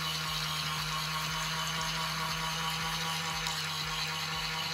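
Small electric motor of a toy washing machine running with a steady hum, turning its spinning part in water.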